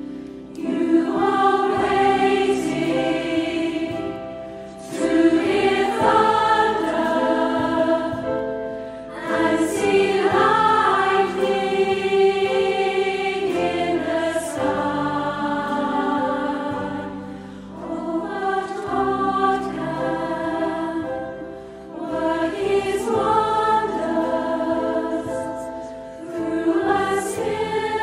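Mixed choir of men and women singing a hymn together with piano accompaniment, in phrases a few seconds long with brief breaths between them.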